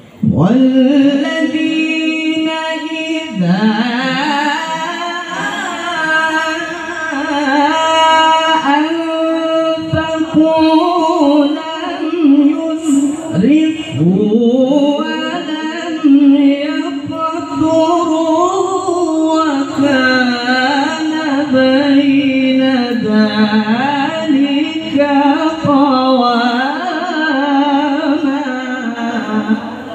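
A man reciting the Quran in the melodic tilawah style into a microphone. He sings long, ornamented phrases with held notes that waver in pitch, taking short breaths between phrases.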